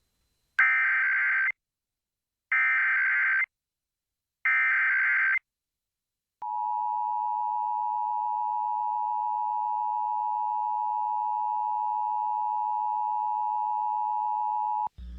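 Emergency Alert System test tones. First come three bursts of the screeching SAME digital data header, each about a second long with a second's gap between them. Then the steady two-tone EAS attention signal (853 and 960 Hz) holds for about eight seconds and cuts off abruptly near the end.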